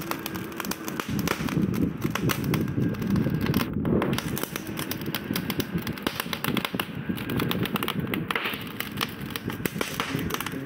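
Charcoal fire under a grill of marinated chicken crackling and popping: dense, irregular crackles and pops throughout.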